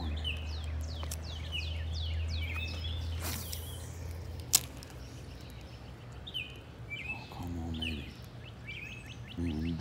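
Songbirds singing over and over, short high calls that sweep downward, above a steady low rumble. A swish comes about three seconds in, and a single sharp click, the loudest sound, about a second later.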